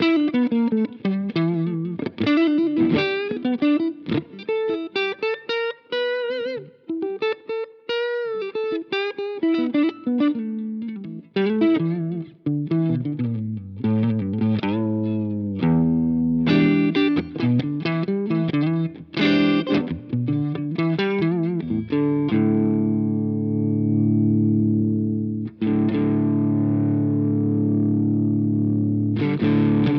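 Electric guitar played through a Jeds Peds Wasteman, a Tube Screamer-style overdrive pedal, giving a driven tone. Quick single-note lead runs give way, about two-thirds of the way in, to a chord left ringing for several seconds. Fresh chords are struck near the end.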